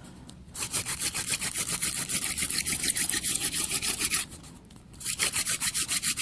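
Mullein hand-drill spindle being spun back and forth into a cedar hearth board for a friction fire: a fast, even rasping of wood on wood, with a short pause near the start and another about four seconds in. The drill is grinding out hot wood dust in the freshly cleaned-out hole.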